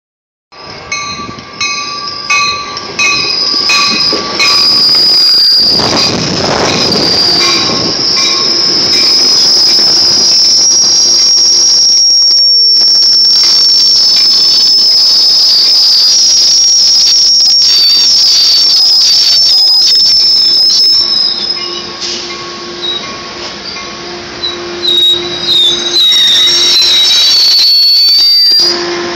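Sounder commuter train pulling into a station platform and slowing to a stop, with a loud, high, steady metal squeal from its wheels and brakes. The squeal wavers and glides in pitch near the end as the train stops. A repeated ringing tone sounds several times in the first few seconds.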